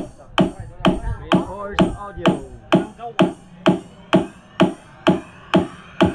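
Electronic dance music with a steady kick drum about twice a second, played loud through a mobile sound system's stacked speaker cabinets driven by a DIY class G power amplifier. A rising synth sweep builds near the end.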